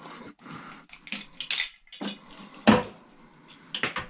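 Debris being scraped out of a cast aluminum part into a garbage can: a run of short metallic scraping strokes, with one loud knock past the middle and two quick knocks near the end.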